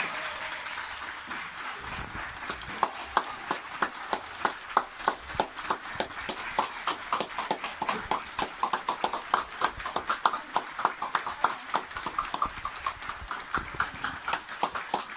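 Horse's hooves clip-clopping on hard ground in a quick, even rhythm of sharp knocks, getting louder over the first few seconds.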